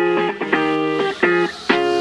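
Background music: an electric guitar playing chords in short, evenly spaced strokes, several a second.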